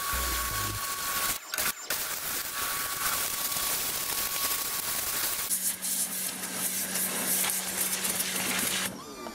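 Dedra 1900W electric pressure washer's water jet blasting heavy, years-old grime off a metal box: a steady hiss, broken twice briefly about a second and a half in. A steady low hum joins past the middle, and the spray stops near the end.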